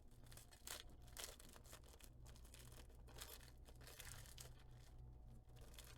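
Faint, scattered crinkling and tearing of a plastic snack wrapper being opened, a handful of soft rustles over a low steady hum.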